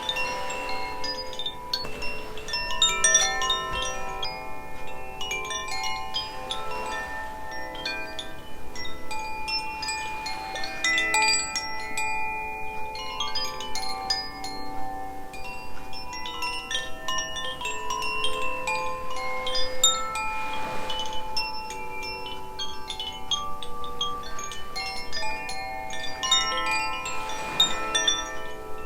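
Koshi chimes, the Aria and Ignis tunings rung together: a continuous wash of overlapping bell-like tones as the clappers strike the tuned metal rods again and again.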